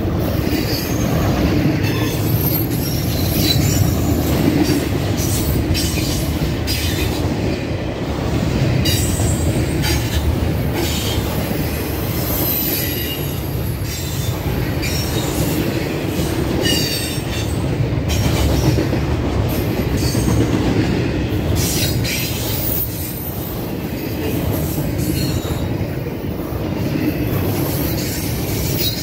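Double-stack intermodal freight train rolling past, its loaded container well cars giving a steady rumble of steel wheels on rail. High-pitched wheel squeals come and go throughout, with scattered clicks from the wheels.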